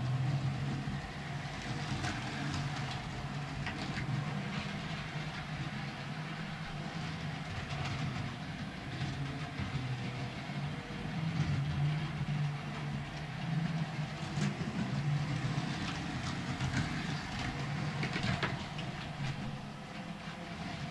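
Model railway trains running round the track: a steady electric motor hum with irregular faint clicking of the wheels over rail joints and points.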